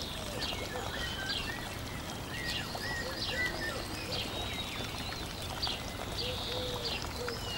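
Birds chirping: many short calls at several different pitches, overlapping, over a steady hiss.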